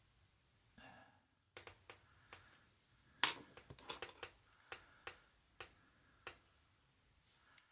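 Small metal clicks and taps of the lock parts and a tool against the brass padlock body as pin tumblers are worked out of the vintage Yale padlock, with a sharper click about three seconds in followed by a short run of taps.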